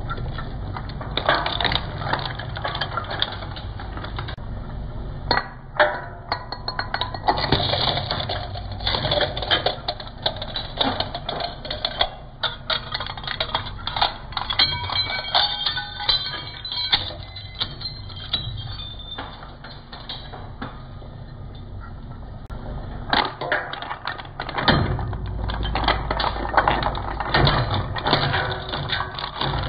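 Twin-shaft shredder running with a steady low motor hum while its cutter discs crunch small plastic items, giving rapid, irregular cracks and snaps. Near the end the hum gets louder and the cracking denser as LED spotlight bulbs go into the cutters.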